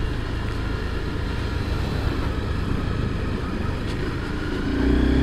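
Sport motorcycle riding along with its engine running in a steady low hum under road noise, growing louder near the end as the engine pulls harder.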